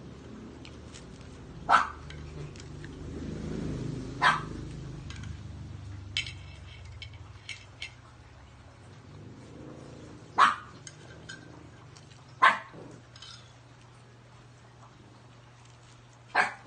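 A dog barking off and on: five single barks several seconds apart, over a low steady hum.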